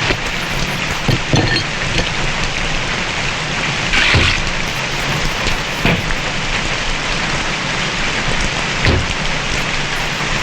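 Heavy rain falling: a steady, dense hiss, with a few brief sharp sounds standing out over it.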